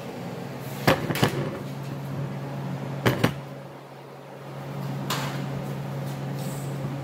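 Steel combine key stock grate knocking against the bench vise as it is handled: two pairs of sharp metal knocks about two seconds apart, over a steady low hum.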